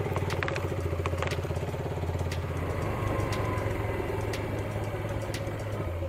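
Motorcycle engine running steadily, a low pulsing hum.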